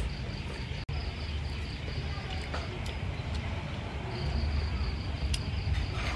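A steady high-pitched insect drone over a low rumble, with a few faint clicks of a metal fork against a bowl during eating. The sound briefly cuts out just before a second in.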